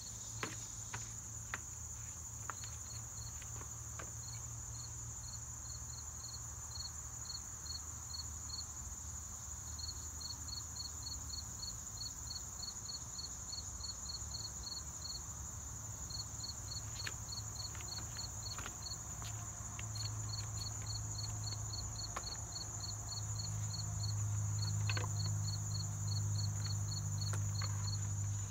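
Insects calling: a steady high buzz with a cricket chirping in quick even runs of about three chirps a second, broken by short pauses. A few light knocks come through, and a low hum grows louder over the last several seconds.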